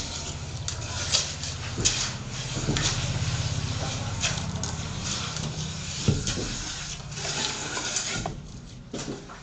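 Scrapes and knocks of a hoe and trowel working wet cement mortar, a few sharp strokes several seconds apart, over a steady low hum.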